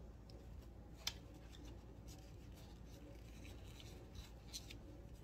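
Faint scraping with a few light clicks, a sharper one about a second in: a measuring spoon being worked into a bag of brown sugar to scoop it packed.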